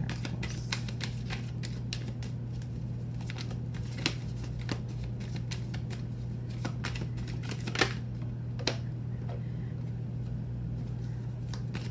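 A deck of tarot cards being shuffled by hand: a quick, uneven run of light card clicks and riffles, with a few sharper snaps about four and eight seconds in.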